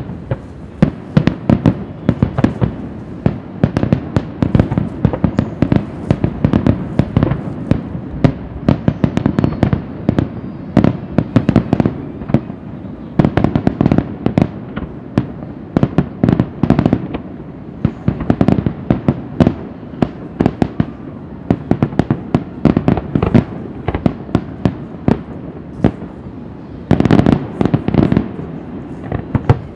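Aerial fireworks shells bursting in a rapid, continuous string of sharp bangs, with a denser cluster of bangs near the end.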